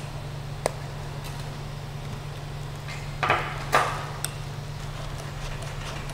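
Creality CR-6 SE 3D printer running with a steady low hum while its nozzle heats for filament loading. Over it are a sharp click under a second in and two short rustling scrapes a little past three seconds in as the filament is handled and fed toward the extruder.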